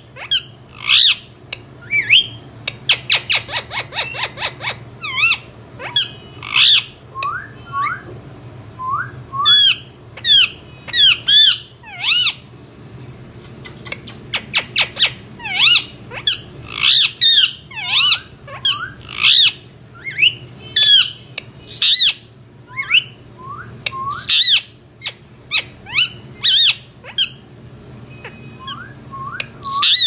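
Indian ringneck parakeet calling: a long series of sharp, high squawks and chirps, broken by quick rattling runs of short notes about three and fifteen seconds in.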